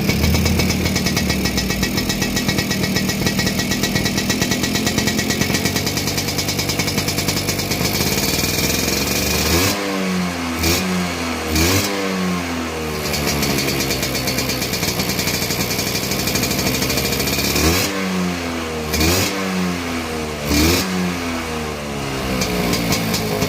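Tuned two-stroke Vespa scooter engine with an L5 cylinder block and PWK carburettor, idling steadily and then revved in quick throttle blips. There are two runs of several blips, about ten seconds in and again around eighteen seconds in, each rising sharply in pitch and falling back.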